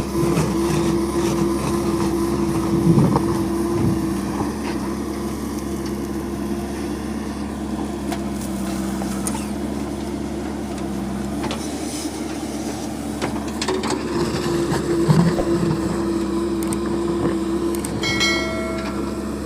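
A JCB 3DX backhoe loader's diesel engine runs steadily under working load. Its upper tone falls away for several seconds mid-way and comes back, and there are scattered knocks. A brief high-pitched tone sounds near the end.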